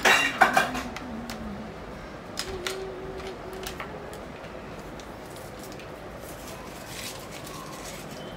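Kitchen dishes and utensils being handled: a quick burst of sharp clacks at the start, then a few scattered lighter clicks and knocks.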